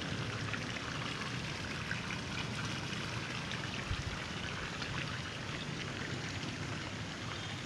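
Steady running water, trickling and pouring, with a fine patter of small drops.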